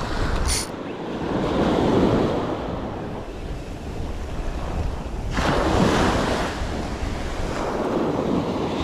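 Small shore-break waves washing up the sand and foaming back, a steady rush that swells with each wash, about two seconds in and again just after five seconds. Wind buffets the microphone underneath.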